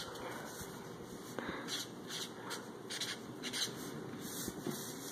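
Permanent marker drawn across lined paper in a series of short, quick strokes, each a faint scratchy rub of the felt tip on the page.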